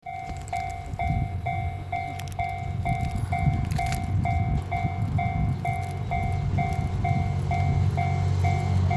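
Japanese level-crossing warning bell ringing its electronic 'kan-kan' tone about twice a second, over the low rumble of a train that grows gradually louder.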